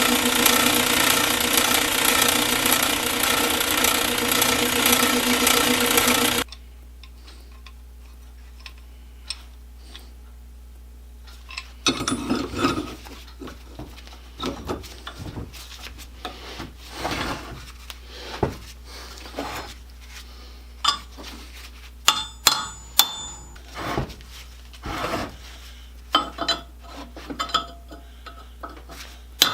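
A workshop machine running steadily, stopping abruptly about six seconds in. After a quiet spell come irregular scraping strokes and light taps of hand work on the small metal clamp parts.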